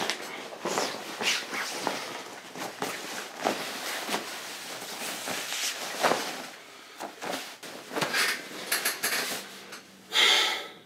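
Bedsheets and blanket rustling, with scattered soft knocks, as they are tugged and smoothed while a bed is made. A louder short rush of noise comes near the end.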